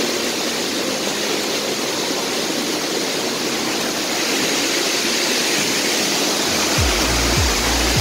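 Waterfall and cascading stream water rushing over rocks, a steady full hiss. Near the end a deep, regular thumping beat of background music comes in under the water.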